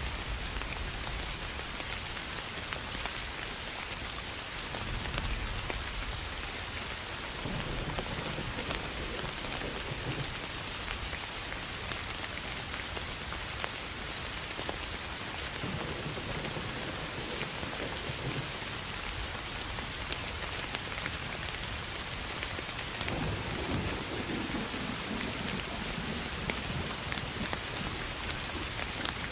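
Steady rain falling on grass and fields, with deep rolls of thunder swelling and fading several times.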